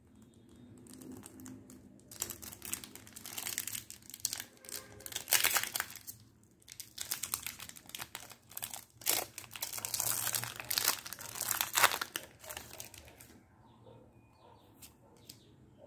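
Foil wrapper of a Pokémon trading card booster pack crinkling and tearing as it is opened by hand. The crinkling comes in several spells with short pauses and dies down near the end.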